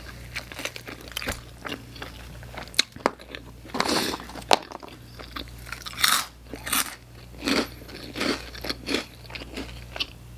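A person chewing Hot Cheetos pizza, with irregular crisp crunches between softer chewing.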